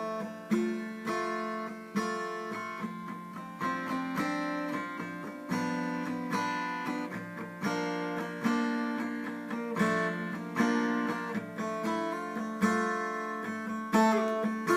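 Guitar in D standard tuning, a whole step below standard, played mellow: chords plucked and strummed around F, a new chord every half second to a second, each ringing out and fading.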